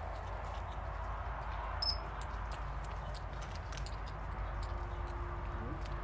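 North American porcupine chewing carrots with its large incisors: a steady run of small crunchy clicks over a low steady rumble.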